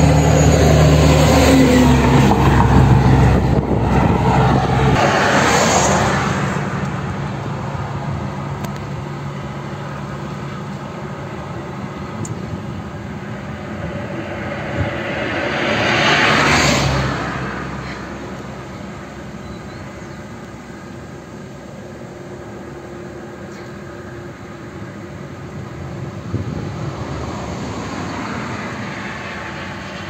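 Road traffic passing. A vehicle's engine drone is loudest in the first few seconds and fades away by about six seconds in. Another vehicle swells and passes about halfway through, and a fainter one passes near the end.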